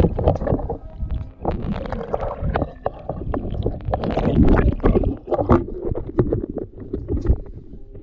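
Water sloshing and splashing around an action camera held at and just under the surface, with muffled underwater gurgles and knocks coming in uneven surges.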